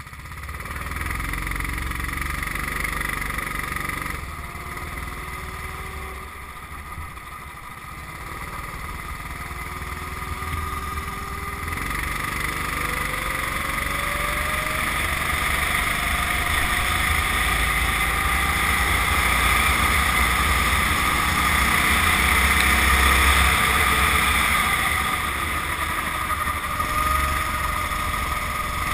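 Kart engine heard from onboard, running and accelerating as the kart pulls away and laps, its pitch climbing in several long rises. It eases off a few seconds in and gets louder from about the middle on.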